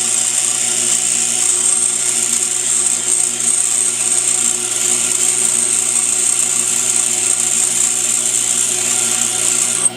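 Pedestal grinder grinding a hand-held high-speed steel lathe tool bit: a steady high-pitched grinding hiss over the grinder motor's hum. The hiss cuts off suddenly just before the end as the bit comes off the wheel, and the motor keeps running.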